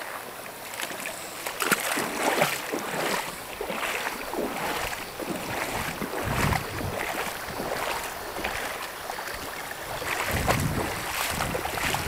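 Shallow mountain stream running over a rock bed, the water gurgling and splashing steadily in the riffles. Low rumbles of wind on the microphone come in about six seconds in and again near the end.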